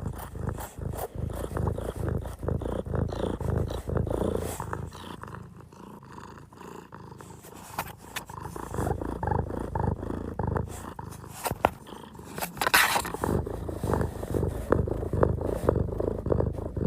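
An animal making low, rhythmic rumbling sounds, with scattered clicks.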